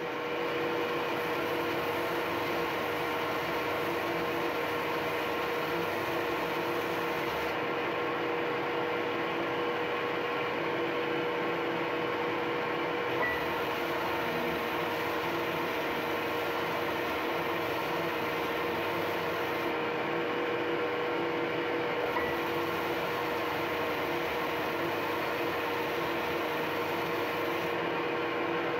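Ryobi RBDS4601G 380-watt belt and disc sander running steadily with a constant hum, its belt sanding a block of wood pressed against the end stop. The high hiss of abrasive on wood drops out and comes back a few times as the block comes off and goes back on the belt.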